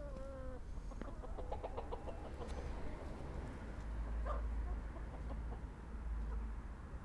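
Domestic chickens clucking: a drawn-out pitched hen call right at the start, then a quick run of short clucks, over a low rumble.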